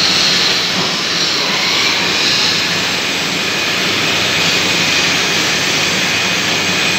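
Large lathe running, its tool cutting a stainless steel ring: a steady, loud mechanical noise with a faint high whine.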